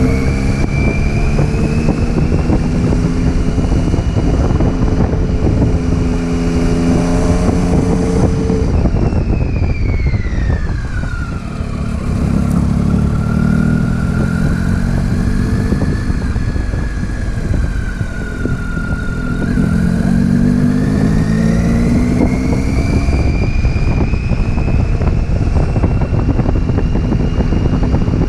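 Motorcycle on the move, its engine running under a heavy rush of wind and road noise. The engine pitch drops as it slows about ten seconds in, stays lower for a while, then climbs again as it speeds back up about twenty seconds in.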